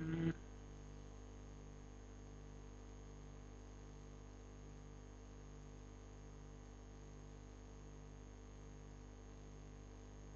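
Steady electrical hum and hiss of the recording setup, with a faint high whine and a low buzz that pulses about every two-thirds of a second. A short voice-like sound comes right at the start.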